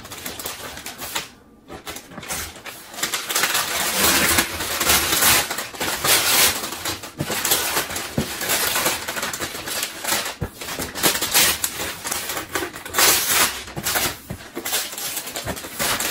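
Gift wrapping paper being torn off a large box and crumpled. After a brief lull about a second and a half in, there is a near-continuous run of loud ripping and crinkling.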